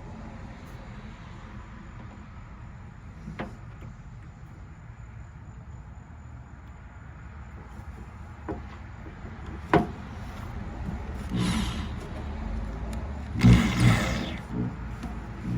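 Motorized wire-stripping machine running with a steady low hum. A few sharp knocks come through, then two louder grinding bursts near the end as the machine works on the wire. It is clogged with gunk from stripped wires.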